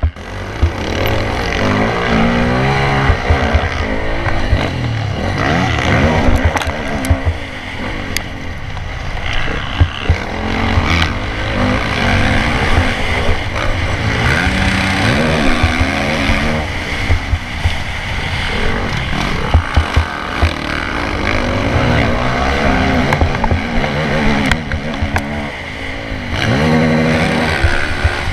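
Motocross bike engine heard from a camera mounted on the bike, revving hard and repeatedly rising and falling in pitch as the rider shifts and throttles through the dirt track, with short thumps over the ground.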